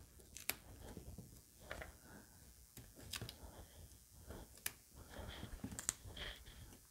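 Faint handling sounds of paper crafting: a few sharp clicks a second or more apart, with soft paper rustles between them, as foam dimensionals are pressed onto small paper pieces with a pick tool.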